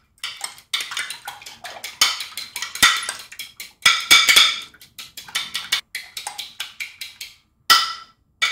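Metal fork beating eggs in a glass dish: quick, irregular runs of ringing clinks of metal on glass, with two separate knocks near the end.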